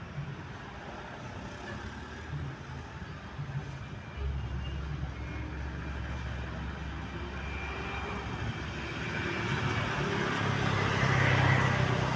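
Road traffic: a steady low engine hum sets in about four seconds in, and the traffic noise grows louder toward the end as a vehicle draws near.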